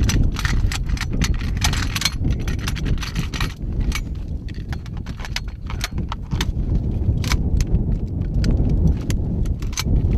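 Metal clicks and rattles of machine-gun parts being handled as the gun is stripped and reassembled, dense in the first few seconds and sparser after, over a steady low rumble.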